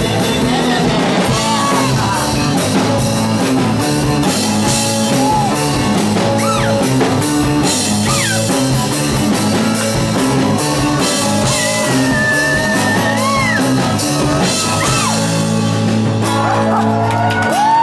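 Live rock band playing: electric guitar, bass guitar, acoustic guitar and drums. Near the end the cymbals stop while a held note rings on.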